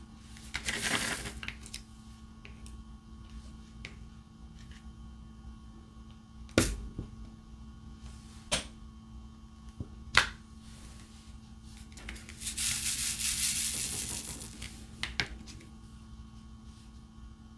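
Diamond-painting drill pen tapping small resin drills onto the canvas: a few sharp, separate clicks, with two spells of rustling, one near the start and a longer one near the end.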